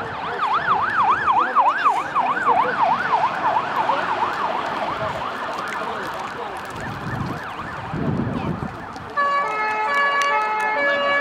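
Siren wailing up and down in pitch, the swings getting faster and faster until it fades out about halfway through; near the end a run of short beeping notes at stepped pitches starts.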